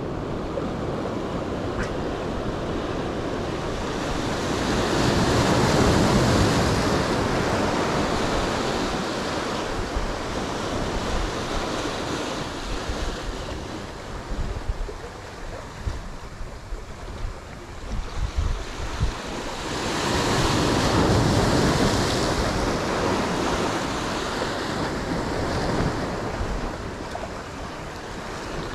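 Sea surf washing in among concrete breakwater blocks, swelling louder twice, about five seconds in and again about twenty seconds in. Wind buffets the microphone underneath.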